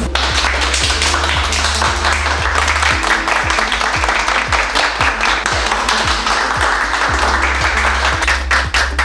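Background music with a steady beat, with a group of people clapping their hands over it; the clapping stops near the end.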